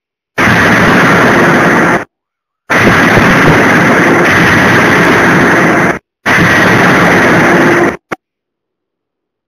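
A 200 kJ CNC hydraulic die forging hammer working a hot workpiece, heard as three long stretches of loud, harsh noise that each cut off abruptly, with a short pop near the end.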